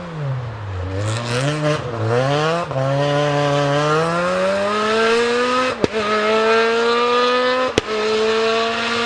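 Rally car engine coming off the throttle with revs falling, then revving up in short steps and accelerating away, the revs climbing and then holding. Three sharp cracks sound in the second half, about two seconds apart.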